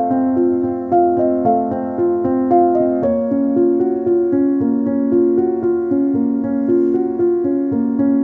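Background music: a piano-like keyboard playing a steady flow of notes, with a change of chord about three seconds in.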